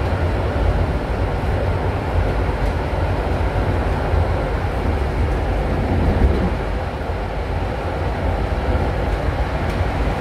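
Konstal 805Na tram running along the track, heard from inside the passenger saloon: a steady, deep rumble of wheels on rails and running gear.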